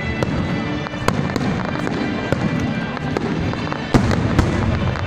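Aerial fireworks display: shells bursting one after another in a dense, rumbling barrage, with sharp bangs about once a second and the loudest one near four seconds in. Music plays underneath.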